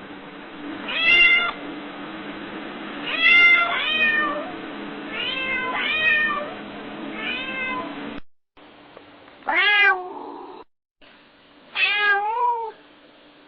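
Domestic cat meowing: about six short meows over a faint steady hum, then a brief silent break. After it, two longer, drawn-out meows from another recording.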